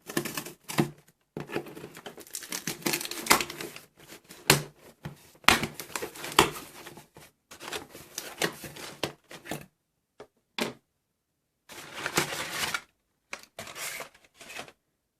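Paper and cardboard packaging being crinkled and torn open by hand: irregular rustling and tearing with sharp crackles and short pauses.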